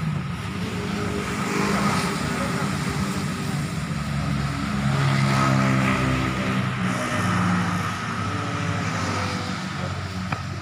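A motor vehicle engine running, its pitch shifting up and down. It grows louder around the middle.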